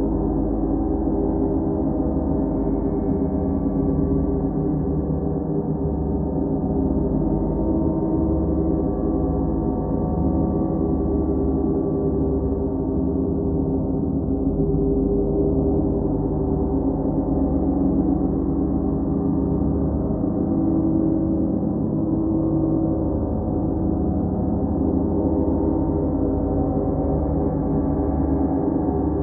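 Large hanging gongs kept sounding together in a continuous wash: many overlapping ringing tones over a deep low hum, steady in level with no single strike standing out.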